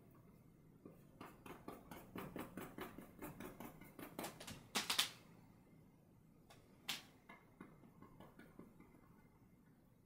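Quick, light tapping and scratching of a paintbrush dabbing paint onto a painting panel, about five or six taps a second, followed by a louder clack about five seconds in and one more click a couple of seconds later.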